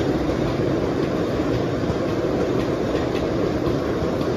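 Loaded sugarcane bins rolling past on narrow-gauge cane railway track: a steady rumble of steel wheels on rail, with occasional faint clicks from the rail joints.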